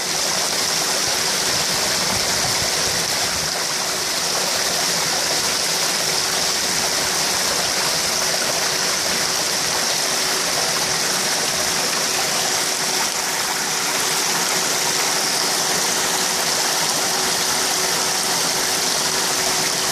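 Water pouring into a koi pond, a steady splashing rush as the inflow churns the surface into foam and bubbles to oxygenate the water. A faint steady hum runs underneath.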